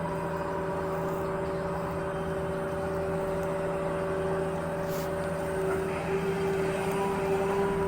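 Electric motors of radio-controlled model vehicles whining steadily over a low hum, several fixed tones that hold unchanged.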